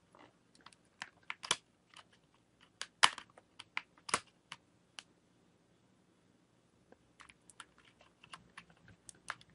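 Irregular small plastic clicks and taps of fingers working at the edge of an Acer Iconia Tab A500, fitting a microSD card into its card slot. The clicks come in two bunches with a pause of about two seconds between them, and the sharpest come about three and four seconds in.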